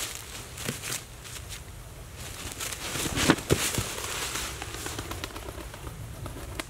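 A pigeon's wings flapping and clapping, with dry leaves crackling and rustling as a puppy and a man scramble through them. A run of sharp claps about three seconds in is the loudest part.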